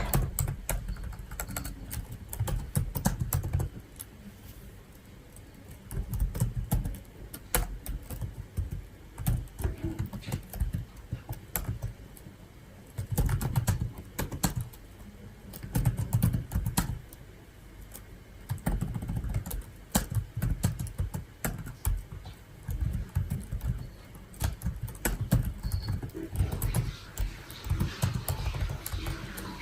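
Typing on a computer keyboard: quick runs of key clicks with dull thuds, in bursts of a few seconds broken by short pauses.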